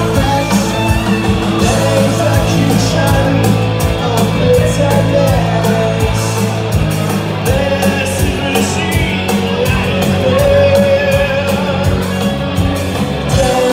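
Live rock band playing loudly: electric guitar, bass guitar and drum kit with steady cymbal strokes, and a man singing lead into the microphone.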